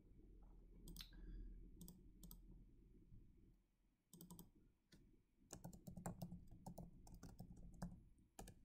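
Faint computer mouse clicks, with a quick run of keyboard keystrokes about halfway through as a short name is typed.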